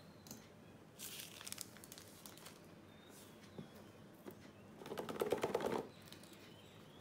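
Clear plastic shrink wrap crinkling as it is peeled off a cardboard phone box: a short crinkle about a second in, then a louder, longer crackle around five seconds in.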